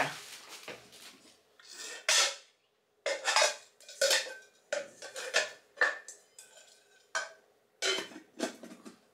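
A pot and its lid clinking and clattering as they are handled, and a wooden handle tapping against the pot as it is fitted: a string of separate clinks and knocks, some ringing briefly.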